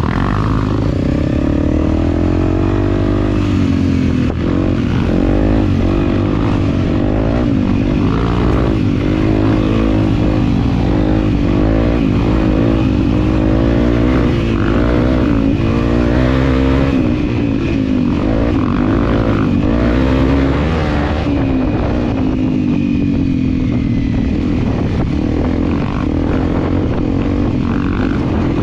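Enduro dirt bike engine revving up and down repeatedly as it is ridden along a trail, the pitch rising and falling with the throttle.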